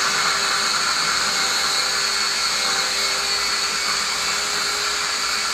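Cuisinart Smart Stick hand blender running steadily with its chopper bowl attached, whirring as it chops chunks of mango into a purée.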